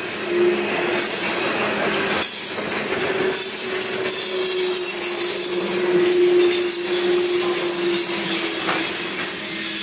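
Freight train of covered hopper cars rolling past close by, its wheels squealing steadily against the rail, with a few sharp knocks from the wheels over the track. The sound eases off near the end as the last car goes by.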